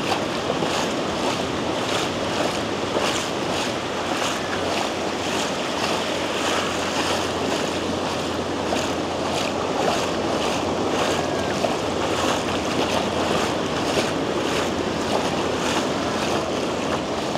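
Ocean surf breaking and washing on a sandy beach, with wind buffeting the microphone. Footsteps tick faintly on top, about two a second.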